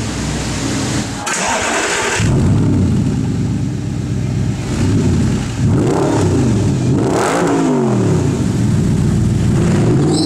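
Straight-piped Audi R8's 4.2-litre V8 running and being revved, its pitch climbing and dropping several times. A short burst of noise comes about a second in, before the revving.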